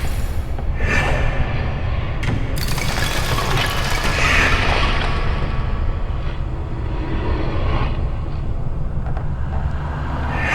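Horror sound-effects ambience: a steady low rumble with swelling noisy whooshes, a sharp crack about two and a half seconds in, and a louder swell near the middle.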